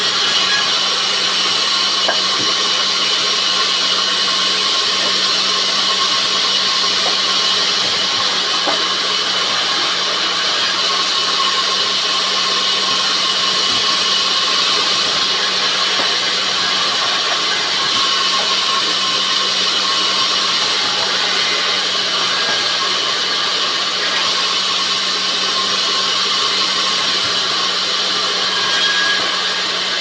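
Vertical band saw running steadily while cutting pine: a constant hum with the hiss of the blade sawing through the wood.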